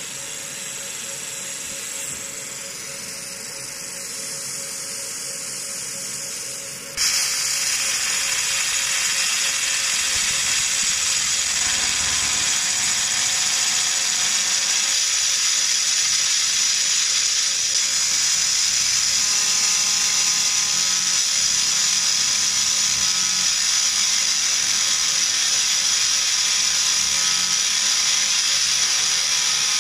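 JPT 60 W MOPA fiber laser marker deep-engraving a metal block. About a quarter of the way in, the beam starts firing and a loud, steady, high hiss sets in abruptly as it ablates the metal. A quieter steady hum with a faint constant tone runs underneath.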